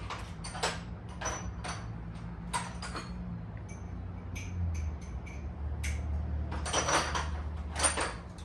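Irregular clicks and clinks of hand tools on metal, bunched together near the end, over a steady low hum that drops in pitch about halfway through.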